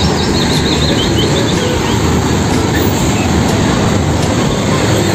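Steady road traffic noise: a dense rumble of vehicles passing on the road.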